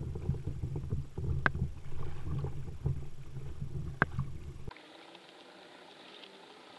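Water sloshing against a kayak's hull just under a bow-mounted camera as it is paddled, with sharp knocks about a second and a half in and again at about four seconds. About two-thirds through it cuts to a much quieter, steady hiss of open water.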